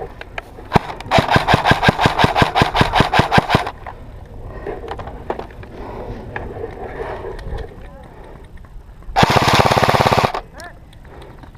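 Airsoft guns firing full-auto: a burst of about three seconds at roughly eight shots a second near the start, then a shorter, faster and louder burst about nine seconds in.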